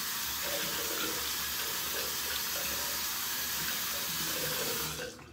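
Bathroom sink tap running steadily, cutting off near the end.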